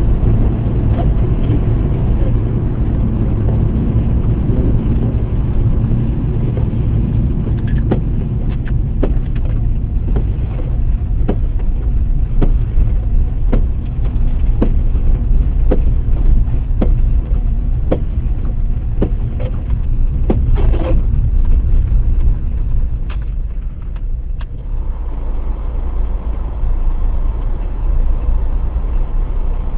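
Car driving along: a steady low engine and road rumble. Faint regular clicks come about once a second through the middle stretch.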